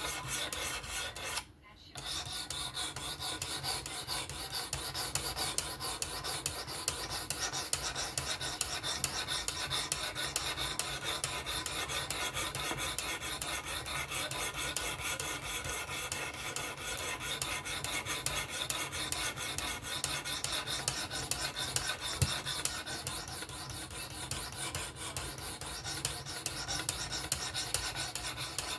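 Vosteed Acorn knife blade being sharpened on a Work Sharp Precision Adjust Pro fixed-angle sharpener: rapid strokes of the abrasive along the steel edge, a steady scraping rasp, with a short break about a second and a half in.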